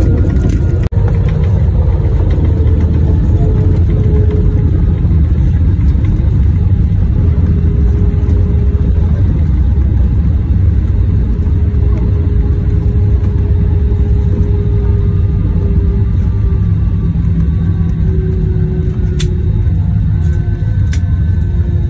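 Jet airliner cabin noise during the landing rollout: a loud, steady rumble from the engines and the wheels on the runway, with a faint engine tone slowly falling as the jet slows.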